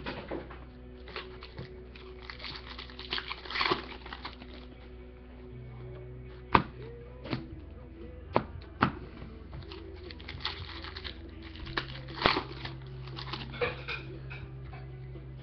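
Baseball cards being handled and dealt onto stacks on a desk mat: scattered light taps and slaps of card on card, a dozen or so spread unevenly, over a faint steady hum with a few held tones.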